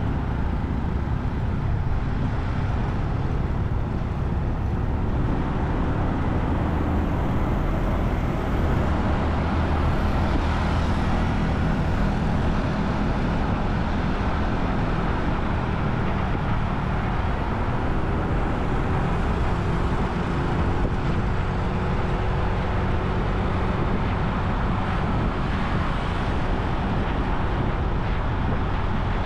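Steady road and traffic noise heard from a motorbike riding through city streets: engines and tyres under a heavy low rumble, with no breaks.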